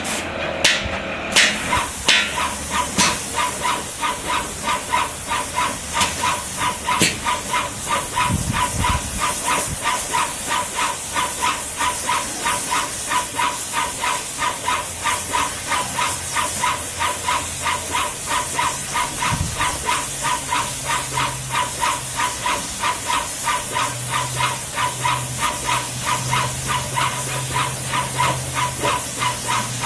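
Graco airless paint sprayer spraying through a RAC X 410 fine-finish tip: a steady hiss of atomised paint with an even pulse about three times a second.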